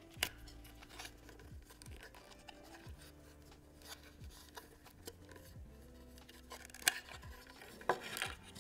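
A black resin watch band being worked free of its plastic packaging holder by hand: light rubbing and scraping of plastic, with a sharp click just after the start and two louder clicks near the end.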